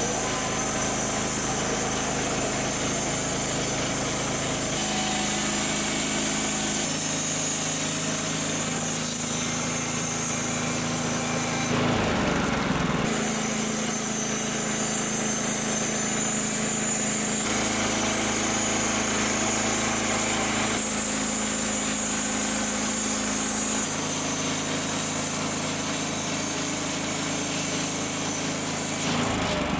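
Woodland Mills HM130Max portable bandsaw mill running, its small petrol engine under steady load as the band blade cuts through an old wooden floor joist. The engine note shifts abruptly several times, with a brief louder noisy stretch about twelve seconds in.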